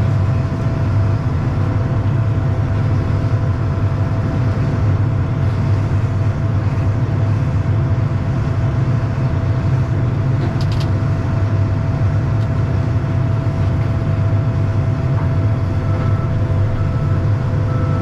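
Combine harvester with a draper header running, heard from close by on the header: a loud, steady mechanical rumble with a steady whine above it, and a brief high ticking about ten seconds in.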